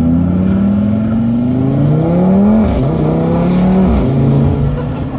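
Tuned, straight-piped pre-facelift Audi RS3's five-cylinder engine accelerating, heard from inside the cabin. The engine note rises steadily and drops with an upshift a little under three seconds in. It climbs again and drops with a second upshift about a second later, then holds level.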